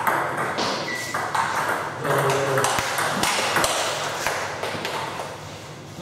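Table tennis rally: a celluloid ball clicking off rubber-covered bats and bouncing on the table, a steady run of sharp clicks.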